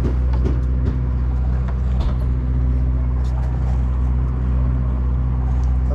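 A boat's engine running steadily with a low, even drone, with a few faint clicks and knocks over it.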